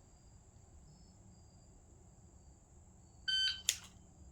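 Faint insect chirping, then a shot timer's electronic start beep about three seconds in, followed moments later by a sharp click.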